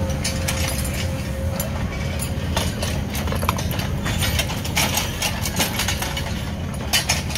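Mini digger's engine running steadily, with a quick, irregular clatter of clicks and knocks over it from the machine working.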